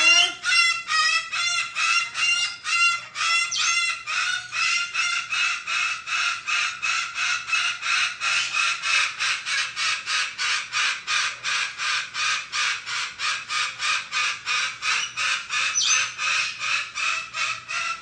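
A parrot calling in a fast, even series of short, harsh notes, about three to four a second at a steady pitch, kept up without a break.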